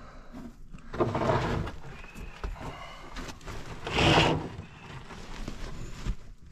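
Handling and movement noise: rustling and scraping as the camera and clothing brush against a plastic sheet and rock while someone moves through a cramped mine tunnel. There is a louder rustle a little after a second in and the loudest one about four seconds in.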